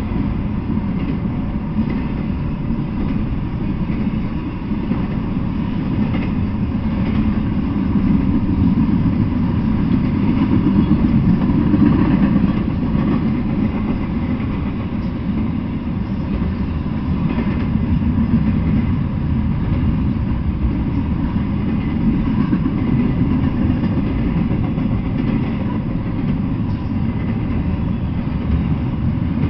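Double-stack intermodal freight train rolling past, container-laden well cars giving a steady low rumble on the rails that swells a little partway through.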